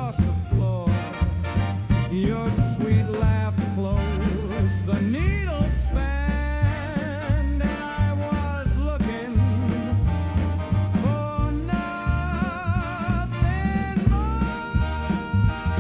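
Swing-style dance band music: an instrumental break, its melody wavering with vibrato over a steady bass and beat, settling on long held notes near the end.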